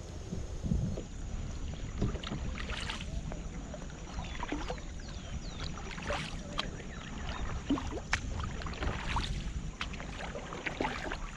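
Double-bladed kayak paddle dipping and splashing in the water, a stroke about every one and a half seconds, over a steady low wind rumble on the microphone.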